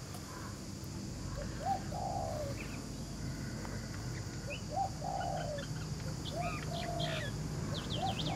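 Wild birds calling outdoors: a repeated lower call, a short rising note running into a held one, about every two seconds, with higher chirps and wavy whistles joining in the second half.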